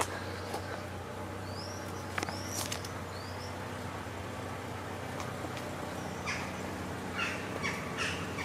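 Four short, harsh animal calls in quick succession in the last couple of seconds, over a steady low hum, with a few thin high chirps about two to three seconds in.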